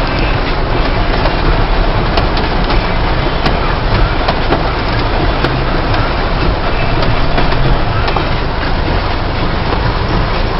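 A car driving through floodwater in heavy rain: a steady, loud rush of water and rain with the vehicle running underneath, and scattered faint ticks.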